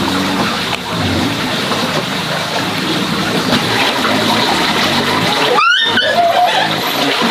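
Steady rushing noise of running water, with a brief rising chirp about six seconds in.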